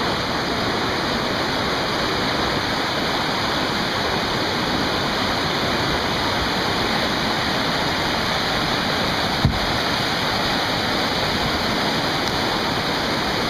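River rapids rushing steadily, whitewater churning close by. A single brief thump about nine and a half seconds in.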